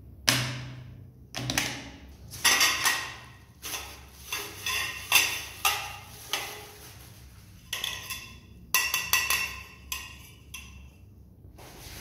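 Hard plastic parts and rubber non-slip pads of an adjustable appliance roller base being handled and set down on a tabletop: a string of irregular knocks and clatters, some in quick clusters, with short pauses between.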